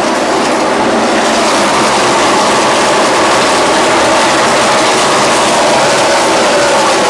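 A field of NASCAR Cup cars' V8 engines running at racing speed: a loud, dense, continuous sound of many overlapping engine notes. In the last few seconds the notes slide lower in pitch as the pack moves away.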